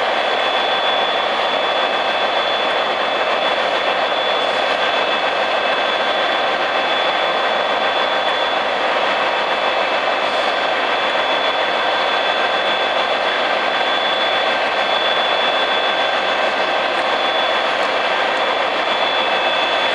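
Diesel locomotives idling at a station platform: a steady engine drone with a constant high-pitched whine over it.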